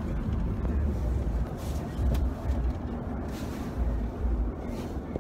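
Low, steady road and engine rumble inside a car's cabin, with a few brief rustling hisses.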